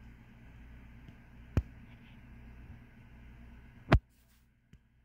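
Faint steady background hum with two sharp clicks, the second louder, a little over a second apart; after the second click the sound drops to near silence.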